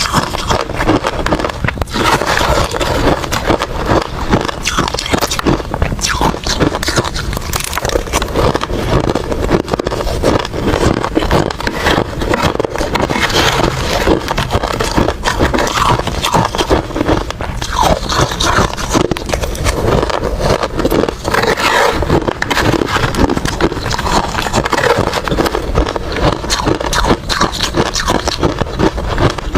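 A person biting and chewing ice, a continuous run of loud, crackly crunches close to the microphone.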